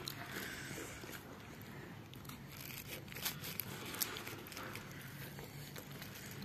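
Metal spoon stirring chaat inside a plastic bag: soft crinkling and rustling of the bag with a few light clicks of the spoon, the sharpest two past the middle.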